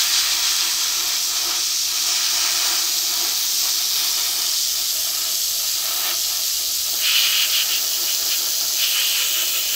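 Spray paint hissing in one long continuous burst, a little louder about seven seconds in.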